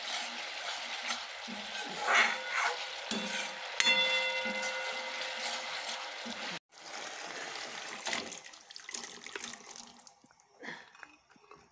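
Spice paste (masala) sizzling as it fries in a kadai and is stirred with a spatula. A short ringing tone comes about four seconds in, and the sound grows quieter and sparser after about eight seconds.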